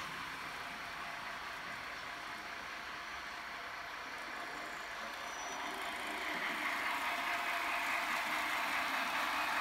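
The sound decoder of a HAG Bm 4/4 II H0 model diesel locomotive, newly converted to digital with sound, plays the running sound of the Swiss diesel engine through the model's small speaker, along with the model's running noise on the track. It grows louder from about six seconds in as the locomotive comes into view.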